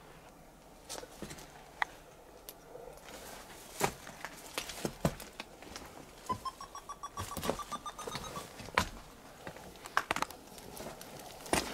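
Footsteps crunching and dry twigs and debris cracking as someone moves through overgrowth, in irregular sharp snaps. Just past the middle, a short run of about a dozen quick pitched notes, rising slightly, lasts about two seconds.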